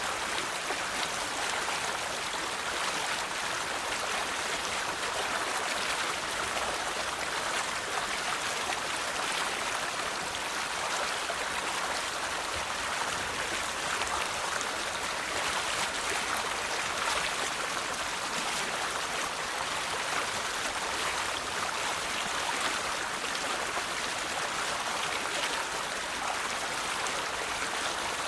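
River water flowing over rocks: a steady rushing babble with fine splashing and no breaks.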